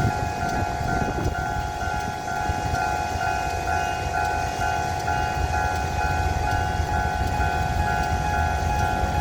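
Level-crossing warning signal sounding its repeating electronic alarm, a pulsing two-pitch tone, over the low rumble of a diesel-hauled train on the line.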